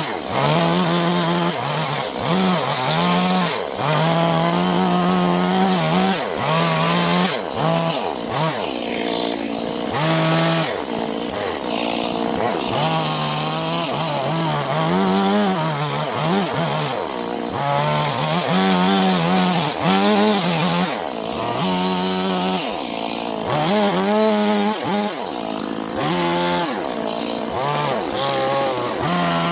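Stihl petrol chainsaw carving into a birch block. The engine pitch drops and climbs back again and again as the throttle is worked and the chain bites into the wood and frees.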